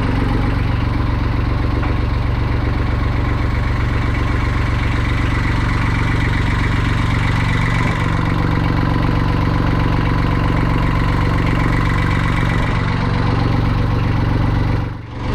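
Universal M25-XPA three-cylinder marine diesel idling steadily.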